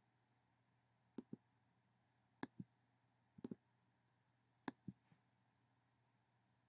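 Computer mouse button clicked four times about a second apart, each a quick press-and-release pair of clicks, over near silence: the mouse advancing the slides.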